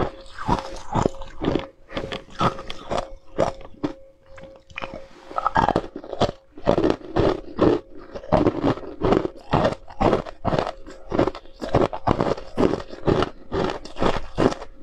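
Ice being crunched and chewed close to a clip-on microphone, in a steady run of sharp crunches about three a second, with a brief pause about four seconds in.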